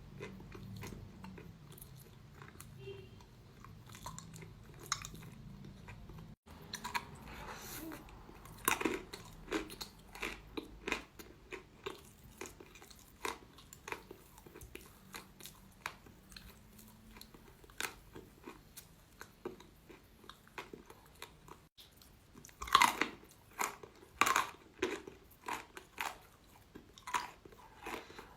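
Close-miked biting and crunching of chalk being chewed, a steady run of short crunches with the loudest bites near the end.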